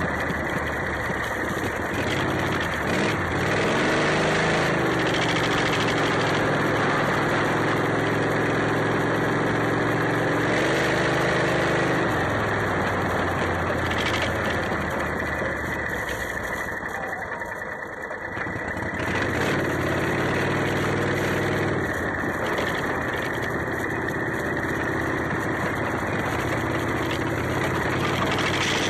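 Modified Club Car golf cart's 23 hp Briggs & Stratton V-twin, breathing through homemade headers, running under way. Engine speed climbs a few seconds in and holds, eases off with a brief lull a little past halfway, then picks up again, over steady wind and road noise.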